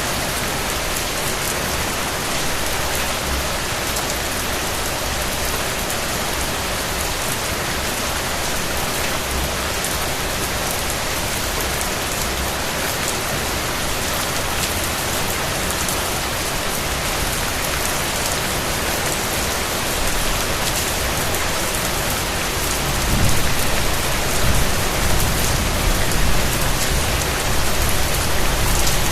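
Steady rain falling, an even hiss of many drops. About three quarters of the way through, a low rumble swells in beneath it and the sound grows louder.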